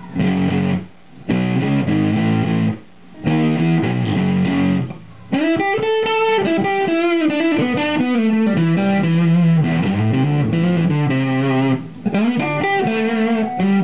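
Stratocaster's middle single-coil pickup played through a Danelectro Cool Cat Fuzz pedal with the gain about a third up and the tone rolled off slightly: a fuzzed electric guitar playing single-note lead lines. It plays short phrases with brief stops, then from about five seconds in longer held notes with bends.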